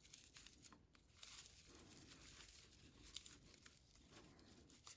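Faint, irregular crinkling rustle of raffia yarn being drawn through stitches with a crochet hook as single crochets are worked.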